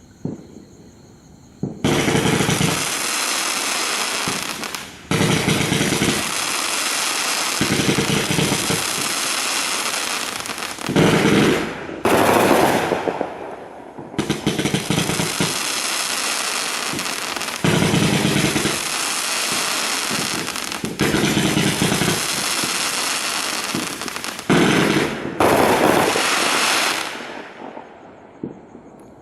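Iron Man Fireworks Sky Conqueror, an 84-shot 500-gram multi-shot aerial cake, firing a rapid string of shots with crackling tails. It starts about two seconds in, pauses briefly a few times, and dies away near the end.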